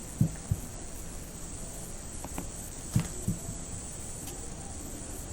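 Quiet background with a steady, faint, high-pitched hiss or trill, broken by a few soft low thumps: two in the first half second and two around three seconds in.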